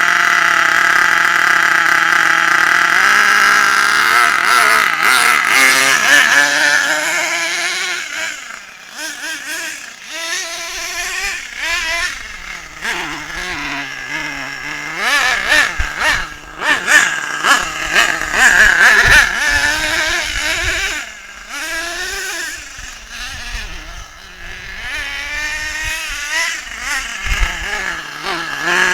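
Small engine of a radio-controlled car, first running at a steady speed, then revving up and down repeatedly as the car drives about, growing louder and fainter as it comes near and moves away.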